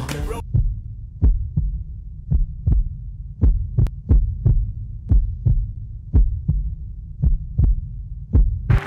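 Heartbeat sound, slow and steady lub-dub pairs about once a second over a low hum. Music comes in near the end.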